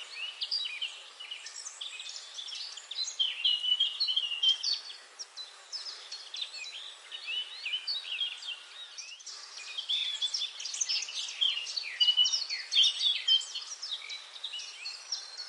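Several songbirds chirping and singing at once, a dense chorus of short high chirps, quick sweeps and trills that overlap and come thick and fast, over a faint steady hiss.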